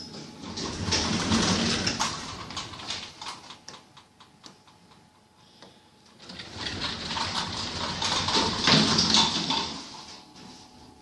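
Lift doors sliding, twice: a rattling run with many small clicks for about four seconds, then a second run starting about six seconds in.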